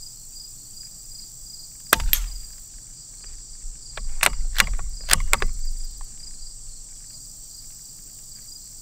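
A suppressed .22 LR bolt-action rifle (Savage FVSR) fires once, with a short muffled crack, about two seconds in. The bolt is then worked in a run of sharp metallic clicks between about four and five and a half seconds. A steady insect chorus runs underneath.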